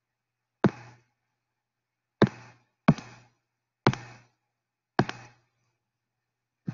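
Six sharp, short clicks at uneven intervals, some of them doubled, from selecting tools and a pen colour in a drawing program on a computer.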